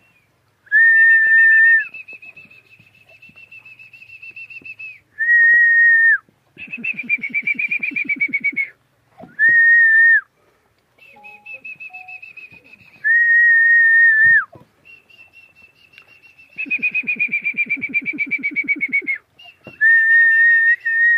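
A person whistling over and over. Short, steady, level notes about a second long alternate with longer, slightly falling, fluttering whistles, about five of each.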